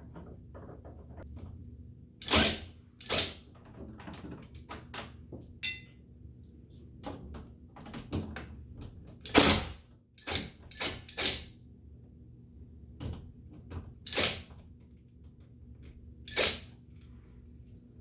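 Scattered knocks and clicks of door-handle hardware being handled and fitted, about a dozen separate strokes, the loudest about two seconds in, near the middle and near the end.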